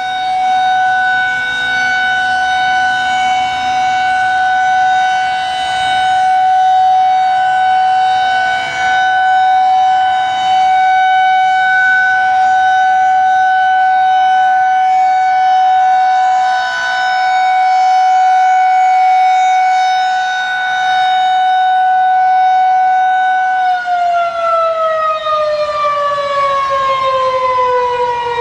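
Federal Signal 2001-SRNB electromechanical warning siren sounding the steady tone of its one-minute alert signal, the loudness swelling and fading every several seconds as the siren head rotates. Near the end the alert ends and the siren winds down, its pitch falling steadily.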